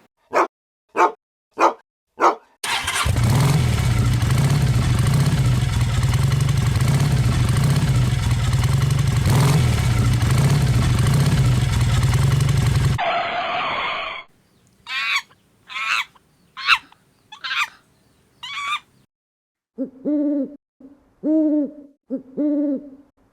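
A string of separate sound effects: four short sharp bursts, then about ten seconds of steady loud rumbling noise that stops suddenly, then a run of short calls, ending with four pitched hooting calls.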